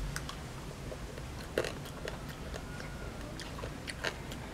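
Close mouth sounds of a child chewing lechon (roast pork) by hand, with a few sharp crunches, the clearest about one and a half seconds in and again near the end.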